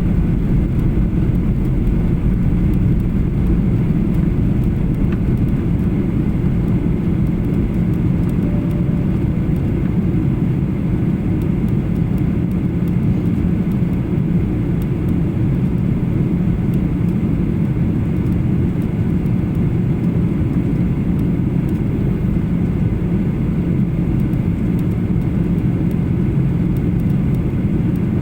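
Steady in-flight cabin noise of a Boeing 737-800 with its CFM56-7B turbofan engines: a deep, even rumble of engines and airflow with a low hum running through it.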